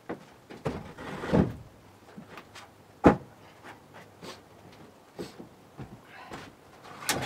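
Wooden knocks and thuds as a pulled-up loft floorboard is carried off and dropped, with footsteps on the old wooden floorboards. The loudest is a single sharp thud about three seconds in.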